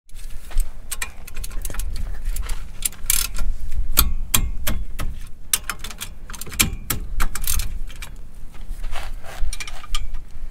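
Hand tools clicking and clinking on the metal of a trailer's disc brake caliper as its bolts are worked loose: many sharp, irregular metallic clicks.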